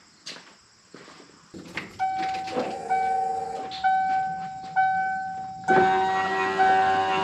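A vehicle's warning chime dinging about once a second, with a motor hum beneath it that grows louder about six seconds in; the hum is most likely the new power window regulator motor driving the glass while the door is tested.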